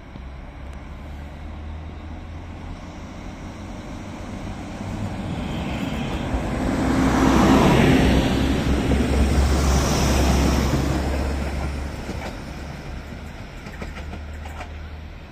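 SA139 diesel multiple unit departing and passing close by, its diesel engine droning and its wheels running on the rails. It grows louder, is loudest about halfway through as it goes past, then fades as it moves away, with a few wheel clicks near the end.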